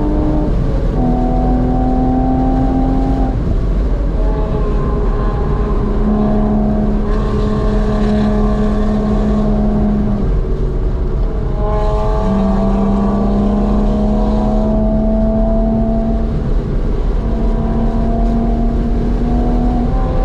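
Flat-six engine of a Porsche 986 Boxster S running hard, heard from inside the cabin, its pitch dipping as the car slows for a corner and rising again as it accelerates back up to speed, over steady wind and road noise.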